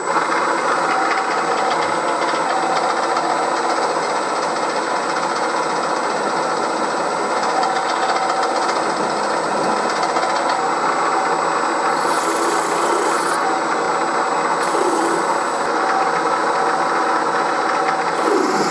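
1938 Bridgeport M-head milling machine running steadily while its drill cuts a hole into a metal cylinder block, with a faint high whine underneath and a few short bursts of hiss in the second half.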